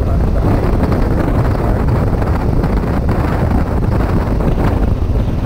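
Steady wind noise buffeting the microphone of a rider on a BMW F800 motorcycle under way, with the bike's parallel-twin engine and road noise running underneath.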